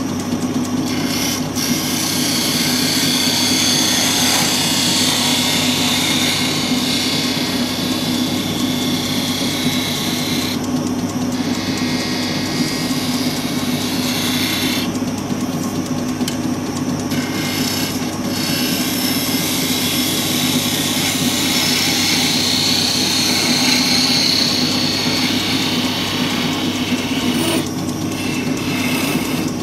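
Wood lathe running with a steady hum while a hand-held turning tool cuts a spinning purpleheart blank, a continuous hissing scrape of shavings coming off. The cutting noise breaks off briefly twice, about a third and about half of the way through, as the tool leaves the wood.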